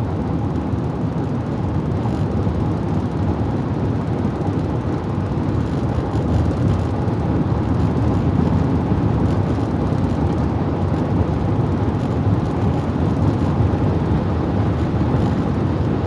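Steady road noise inside a car cabin cruising at highway speed, an even low noise that holds level throughout.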